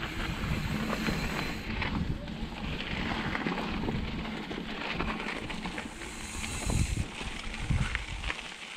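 Mountain bike rolling down a bumpy dirt and rock trail: tyres crunching over the ground and the bike rattling on the bumps, with wind rumbling on the microphone. A few harder jolts come around six to seven seconds in.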